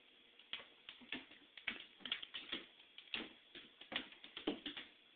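Faint, irregular light clicks and taps, about four a second, starting about half a second in: a cat's claws ticking on a hard, smooth floor as it scrambles and plays.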